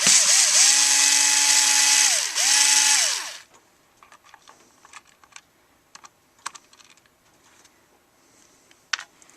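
Ryobi HP43L cordless power screwdriver motor spinning out a screw in two runs, a longer one and a short one, each steady and then winding down in pitch. Faint clicks of handling follow.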